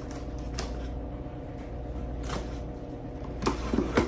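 Cardboard shipping box being handled and pulled open: a handful of short scrapes and knocks, the loudest clustered near the end.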